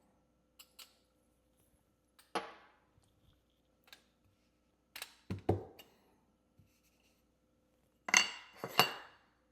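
Espresso puck preparation: sharp metallic clinks and knocks as the portafilter and its tools are handled. There are a few isolated strikes with a short ring, and the loudest are two ringing clinks about two-thirds of a second apart near the end.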